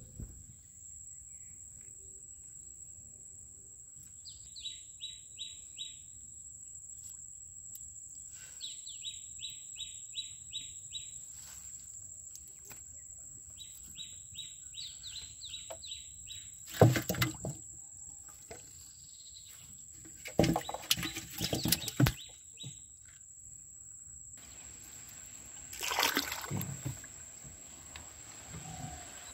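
A bird calling in three quick runs of short, falling notes over a steady high whine. Several loud bursts of water splashing and pouring, mixed with knocks, come around the middle and again near the end as a woven bamboo fish trap is handled.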